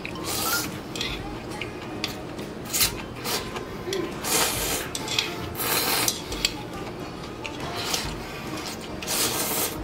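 Eating from a bowl held up to the mouth with chopsticks: a series of short, noisy slurps of noodles, with chopsticks clicking against the bowl.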